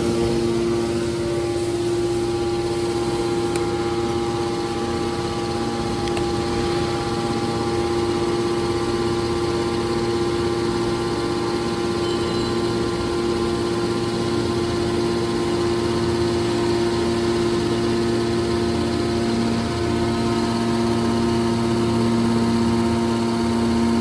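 Hydraulic iron baler's power unit running steadily: electric motors driving the hydraulic pumps with an even hum and several held tones.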